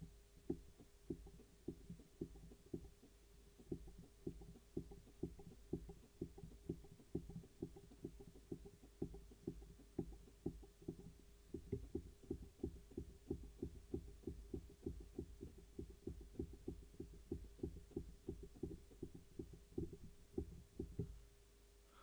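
A regular series of soft clicks, about two to three a second, as the lens aperture is stepped shut and back open from a remote control; they stop near the end. A faint steady hum runs underneath.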